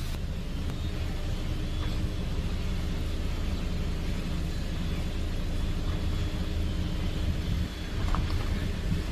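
A motor vehicle's engine running with a low, steady rumble.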